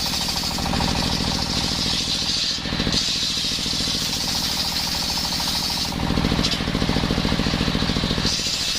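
Circular sawing machine running with a steady rapid pulse as its blade cuts coconut wood. The higher cutting hiss breaks off briefly about two and a half seconds in and again from about six to eight seconds, while the machine keeps running.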